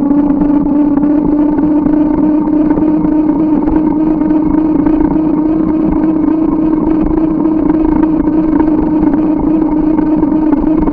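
Riding noise of a moving bicycle, picked up by the bike-mounted camera: a steady hum that holds one pitch over a constant rumble.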